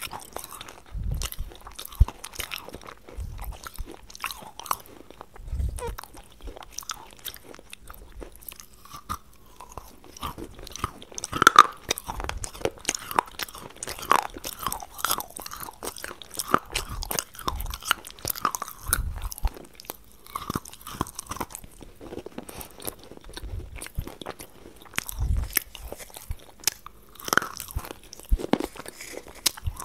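A person biting and chewing something crunchy close to the microphone, in a run of crisp crunches and crackles with dull low thuds every few seconds, the loudest crunch about halfway through.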